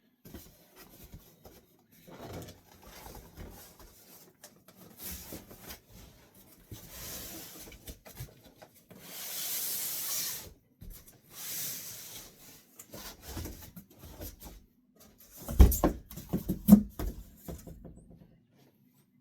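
Cardboard boxes being handled: cardboard sliding and scraping against cardboard, with a longer scrape about nine seconds in and a cluster of loud knocks and thumps a few seconds before the end.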